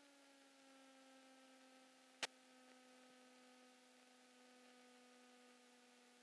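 Faint, steady hum of a Cessna 172 Skyhawk XP's engine: a low tone with several overtones, holding one pitch. A single sharp click about two seconds in.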